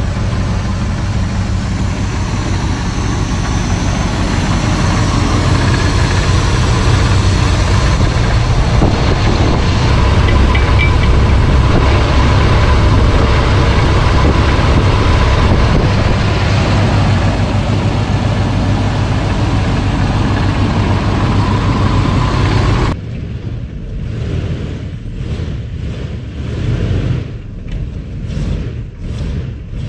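Old Chevrolet pickup's engine running steadily just after being brought back to life, loud and close. About 23 seconds in it suddenly drops to a quieter, more distant rumble with uneven swells.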